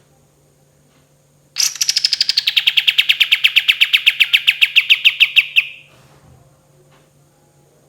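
Kapas tembak songbird giving one long, rapid rolling trill of about nine notes a second. The trill begins about a second and a half in, starts high and settles a little lower, and runs for about four seconds.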